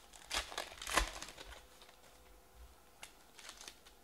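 Trading-card pack being handled and opened: a few quick crinkles and rustles of the wrapper and cards in the first second, then fainter scattered rustles about three seconds in.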